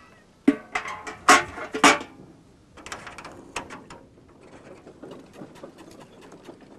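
Metal buckets clanking and rattling as they are picked up and knocked against an oil drum: a quick run of sharp, ringing clanks, the loudest in the first two seconds, a few more about three seconds in, then lighter scattered clicking.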